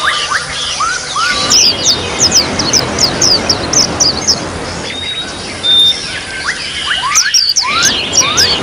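White-eye (pleci) song: runs of quick, high sweeping chirps in two flurries, over a steady wash of trickling water.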